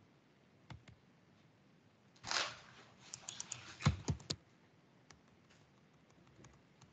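Computer keyboard and mouse being operated: scattered clicks and taps, a short rustle a little over two seconds in, then a quick cluster of clicks with a couple of heavier knocks about four seconds in.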